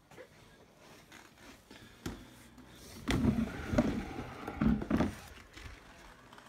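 Handling noise from a phone being carried while someone moves about: a single knock about two seconds in, then a few seconds of rustling and dull thumps.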